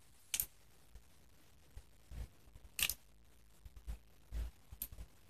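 Scattered clicks and light knocks as the plastic case halves and parts of a dismantled Merlin Gerin miniature circuit breaker are handled, with a few sharper clicks about half a second, three seconds and five seconds in.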